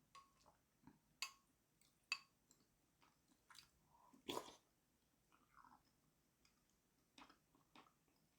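Faint sounds of someone eating rice cake soup: soft chewing and scattered light clicks, with one louder, longer sound a little over four seconds in.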